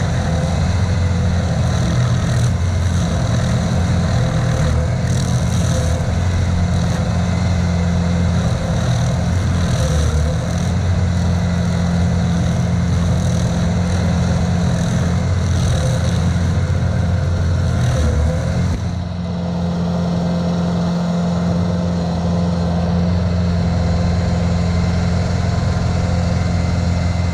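Carlton SP7015TRX tracked stump grinder running steadily at working speed, its cutter wheel grinding into a stump. About two-thirds of the way through the sound dips briefly, then the engine runs on with less of the high grinding hiss.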